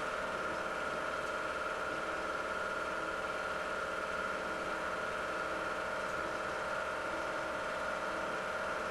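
8 mm film projector running: a steady motor hum with a held high whine.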